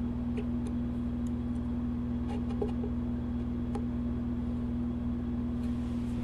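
Faint scattered clicks and taps of a caliper being set against a freshly carved workpiece, over a steady low electrical hum.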